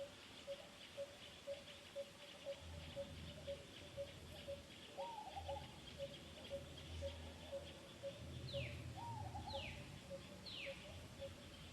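Birds calling outdoors: one repeats a short low note about twice a second, another gives a rising-then-falling call twice, and three quick falling whistles come about a second apart near the end. A low rumble sits underneath from a few seconds in.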